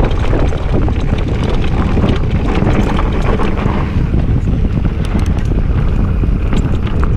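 Wind buffeting the microphone and tyre noise from a full-suspension mountain bike descending a dirt downhill trail at speed, with scattered sharp clicks and rattles from the bike over the rough ground.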